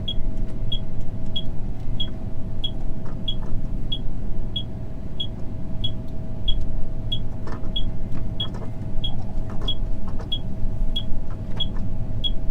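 Steady engine and road rumble heard from inside a vehicle cab, with a turn indicator ticking at an even pace of about one and a half ticks a second.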